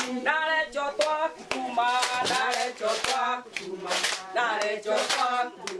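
A group of women singing a Swahili song together, with rhythmic hand clapping in time.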